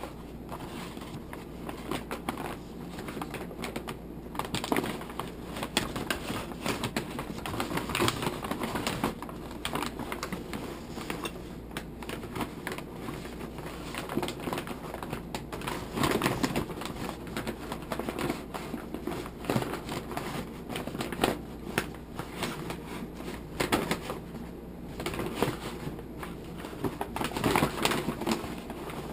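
Packaging being handled and opened by hand: irregular crinkling, crackling and clicking throughout.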